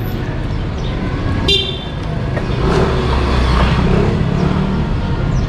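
Street traffic noise with a steady low rumble. A brief high-pitched toot sounds about a second and a half in.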